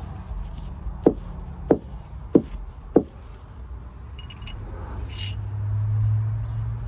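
Four sharp metal clicks, evenly spaced about two-thirds of a second apart, from hand work on a pickup truck's front suspension parts. From about the middle a low steady hum builds up, with a brief high chirp.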